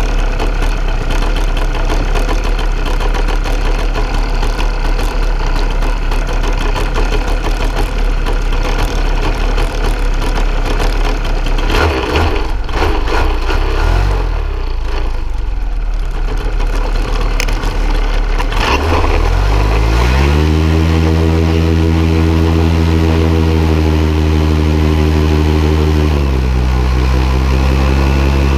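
Paramotor engine close behind the microphone, idling low for most of the first two-thirds. About nineteen seconds in it is throttled up to a steady, much higher-pitched power setting, eases off briefly near the end, then comes back up as the wing is brought overhead for takeoff.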